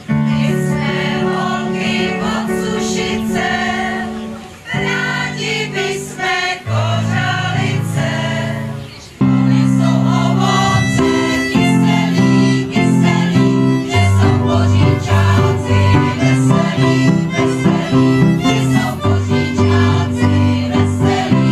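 Women's choir singing with violin and electronic keyboard accompaniment. The music breaks off and picks up again abruptly twice in the first half.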